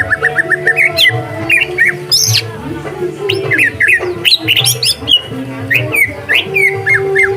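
Green leafbird (cucak hijau) singing a quick, varied run of chirps and whistles, over background music with steady low notes.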